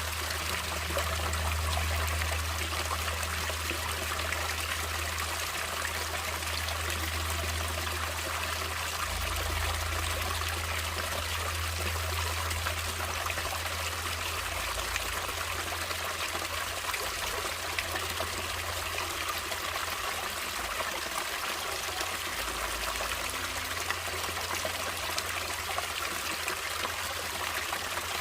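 Natural running water flowing and trickling steadily, a continuous rush with a low rumble underneath.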